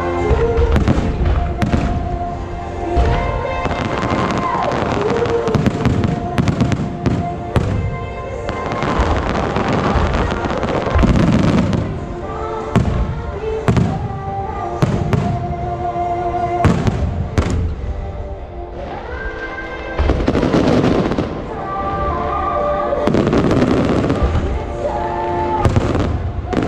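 Aerial firework shells bursting in rapid, overlapping volleys of booms and crackles, with music playing underneath.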